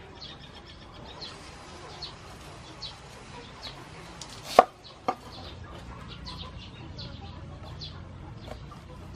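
Knife cutting a whole pineapple on a wooden chopping board, with one sharp knock of the blade on the board about halfway through and a softer one just after. A bird chirps in the background, a short high chirp repeated a little more than once a second.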